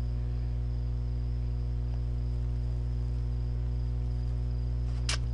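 Steady electrical hum with a faint high whine over it, the background noise of a home screen-recording setup, with one short click about five seconds in.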